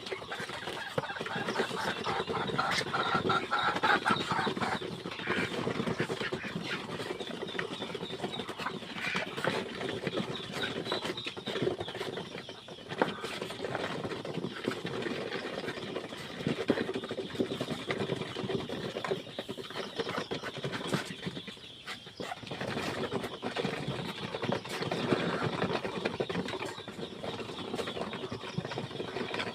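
A flock of chickens and ducks calling together in a steady, busy chatter, with many short clicks through it.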